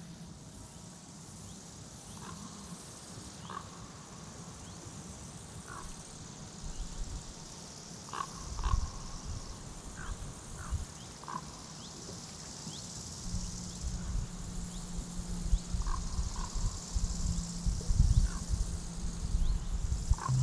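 Short animal calls at scattered moments, over a steady high-pitched insect-like hiss and a low rumble of wind or handling that grows busier in the second half.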